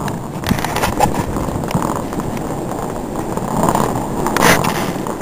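Steady engine and road noise of a vehicle driving, with a few light knocks.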